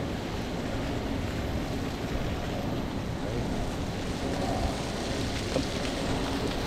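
Wind rushing and rumbling on the microphone outdoors: a steady, noisy rush with a fluttering low rumble.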